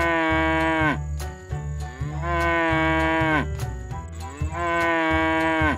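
Cow mooing three times, each a long call of over a second that settles onto one pitch and drops away at the end, over background music.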